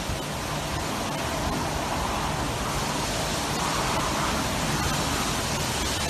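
Typhoon Jebi's wind and heavy rain, a steady rushing noise with no let-up.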